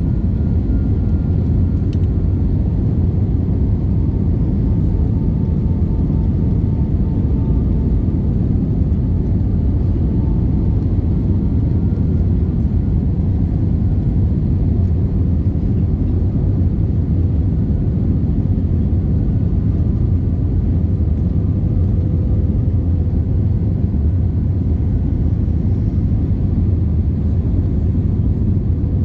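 Cabin noise inside an Airbus A320-232 on approach with flaps down: a steady low rumble of airflow and its IAE V2500 engines, with a few faint steady whines on top.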